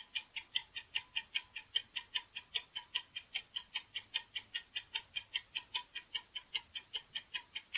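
Countdown-timer ticking sound effect, a rapid even clock-like tick at about five ticks a second, marking the answer time in a quiz.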